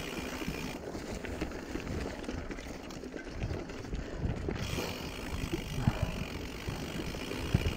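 Mountain bike rolling fast down a rough dirt singletrack: tyre noise on dirt and stones under a steady rush, with the bike rattling and knocking over bumps, two sharper knocks near the end.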